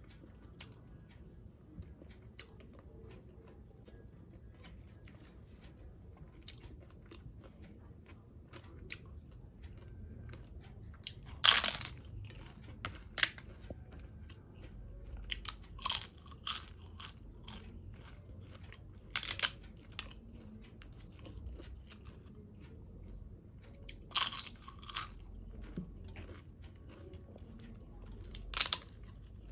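Close-miked eating of crispy food: loud crunching bites and chewing that come in clusters from about a third of the way in, with only faint small clicks before.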